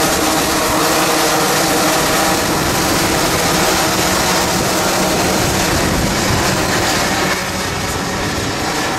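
Several two-stroke racing kart engines running at racing speed as a pack of karts goes by, their pitched engine notes overlapping. The sound drops a little about seven seconds in as the karts move farther off.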